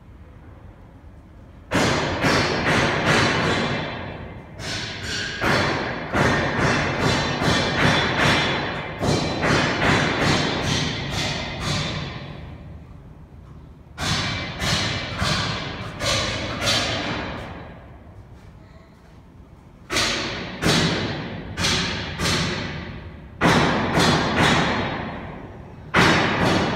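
Runs of sharp percussive strikes, each ringing off quickly, about three a second, in groups separated by pauses of a second or two, over a faint steady machine hum.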